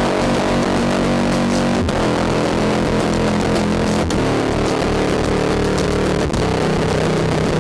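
Circuit-bent Casio MT-240 keyboard played through added distortion: a loud, dense, distorted drone of sustained buzzing tones under hiss. The tones shift every two seconds or so, each change marked by a brief dropout.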